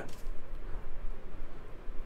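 Quiet room tone with a low, steady hum and no other distinct sound.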